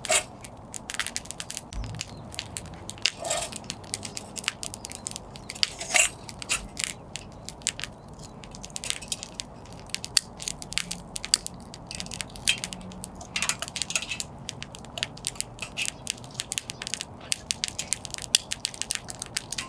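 Wood campfire crackling, with dense irregular sharp snaps and a few louder pops.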